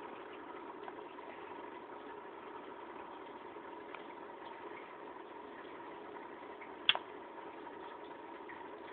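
Aquarium pump humming steadily with a faint constant whine; one sharp click about seven seconds in.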